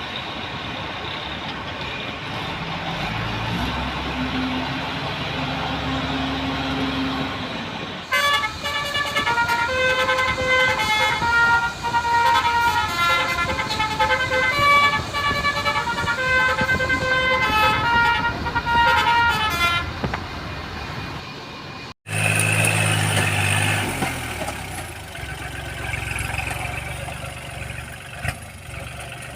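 A multi-tone telolet horn plays a quick, repeating tune of short notes at changing pitches for about twelve seconds, over a running diesel engine. Before and after the tune the engine is heard alone, and there is a sudden cut about two-thirds of the way through.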